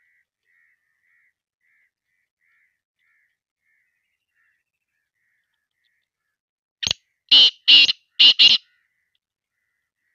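Black francolin call: one short harsh note, then four loud grating notes in quick succession, about seven seconds in. Before it come faint, evenly spaced chirps, a little more than one a second.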